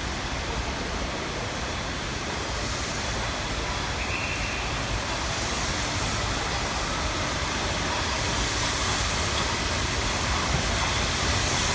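Train running with a steady rumble and hiss that grows gradually louder.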